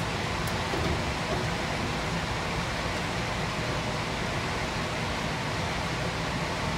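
A steady, even rushing hiss of background noise, with one faint click about half a second in.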